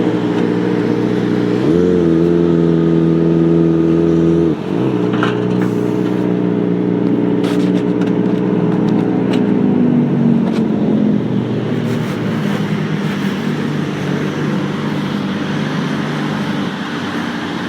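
Kawasaki Ninja ZX-25R's inline-four engine running through a Beet Nassert R Evolution exhaust with no catalytic converter. The note rises in pitch about two seconds in and holds high, drops sharply a few seconds later, then settles lower again around ten seconds in.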